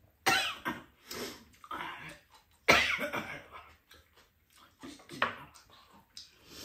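An older woman coughing several times in short, sudden bursts, the loudest nearly three seconds in, as she chokes on spicy fire-chicken fried rice.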